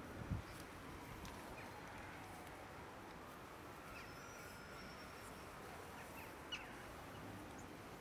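Faint outdoor ambience: a steady low hum with a few short, high bird chirps scattered through it, and one soft thump near the start.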